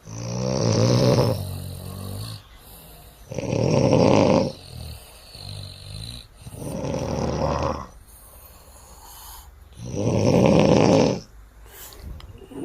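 A man snoring loudly, four long snores about one every three seconds.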